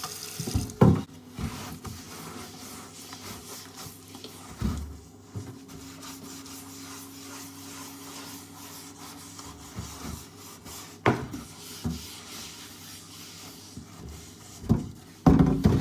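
Scrubbing baking soda into a wooden cutting board: steady rubbing and scratching, with a few short knocks of the board.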